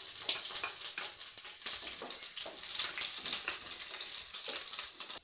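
Chopped garlic and green chillies sizzling in oil heated on high flame, with a steady high hiss and many small crackles, stirred with a wooden spatula in a nonstick pan.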